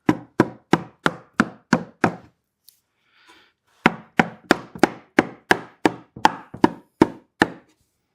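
Cedar beehive box dovetail joints being knocked together with blows on the wood, about three a second: seven blows, a short pause, then about eleven more.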